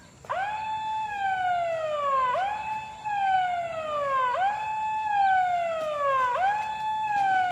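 A siren wailing in a repeating pattern: each cycle jumps up in pitch, then glides slowly down, about every two seconds, four times in a row.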